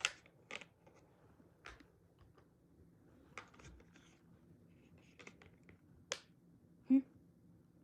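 Scattered small clicks and taps of plastic phone parts and a battery being handled and pressed into an opened mobile phone, about a dozen, irregular, the sharpest about six seconds in.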